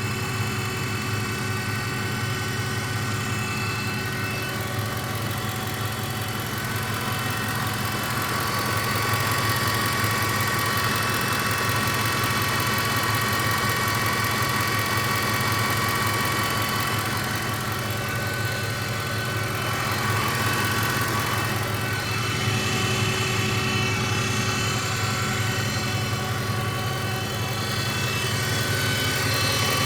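Ford F-150 4x4 pickup running steadily with a hum and a clicking noise, the cause of which the owner does not know.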